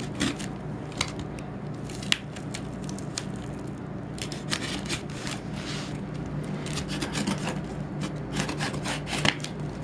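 A knife blade slitting packing tape along the top of a cardboard box, in many short scraping strokes with a few sharp clicks, over a steady low hum.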